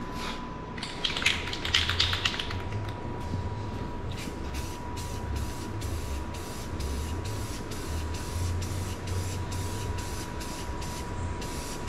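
Aerosol spray-paint can spraying paint onto a primed sheet-metal sign in short, quick bursts, about three a second, after a louder, longer spray in the first few seconds.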